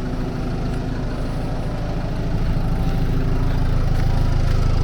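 Large engine of a tree-removal machine running steadily at a low, even idle, growing slightly louder a little over two seconds in.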